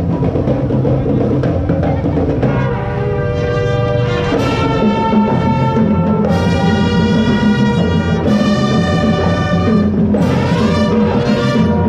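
Brass band music: long held brass notes over continuous drumming.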